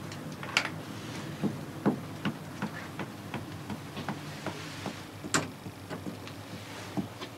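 Irregular sharp clicks and knocks of things being handled, about one every half second, the loudest about five seconds in, over a low steady hum.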